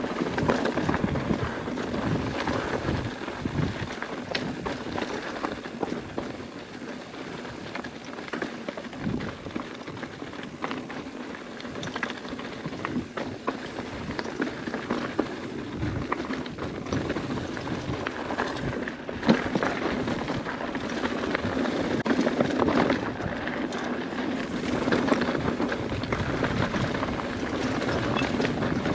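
Mountain bike rolling over rocky, loose-stone singletrack: a steady crunch of tyres on gravel and rock with a constant rattle and clatter from the bike. There is a sharp knock about 19 seconds in.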